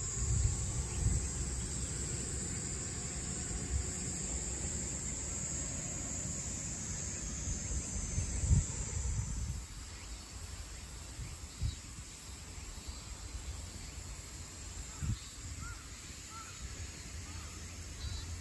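Outdoor ambience at a pond bank: wind rumbling on the microphone with a few handling thumps, and a steady high insect drone that stops about halfway through. Faint short bird chirps come in near the end.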